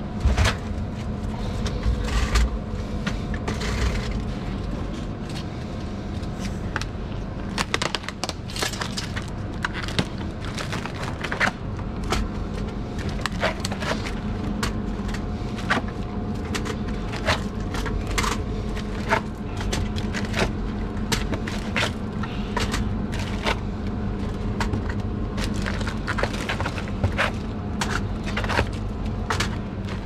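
Bottled drinks being handled and set onto cooler shelves: irregular knocks, clicks and scrapes over a steady background hum.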